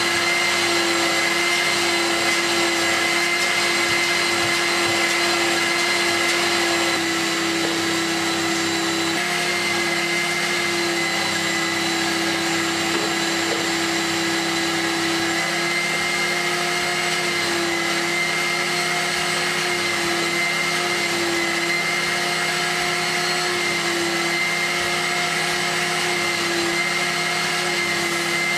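Electric cleaning machine's motor running steadily: a vacuum-type whine over a steady hum and hiss, dropping slightly in loudness about a quarter of the way in.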